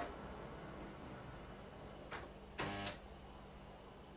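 Clicking of a model train's wheels on the track joints: a faint click, then a louder clack that rings briefly, about two and a half seconds in, over a low steady hum.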